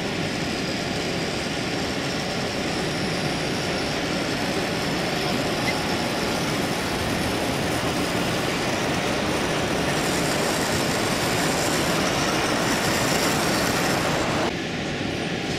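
Model steam locomotive hauling coaches along the layout, a steady rolling train noise that drops quieter abruptly near the end.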